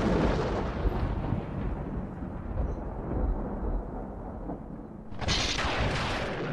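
Dramatic film sound effect: a deep, thunder-like rumbling boom that slowly dies away, then a second hissing swell about five seconds in, used for a ghost's appearance.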